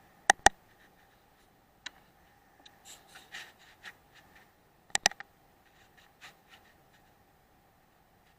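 Two pairs of sharp clicks, one right at the start and one about five seconds in, with softer rustling and scraping between them: handling of a Weihrauch HW100 air rifle.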